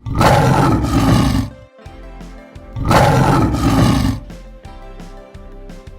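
Tiger roaring twice, each roar about a second and a half long, over background music.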